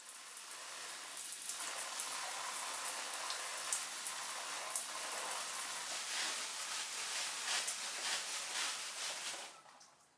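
Steady rain falling, a dense even hiss of many small drop ticks; it fades in at the start and fades out near the end.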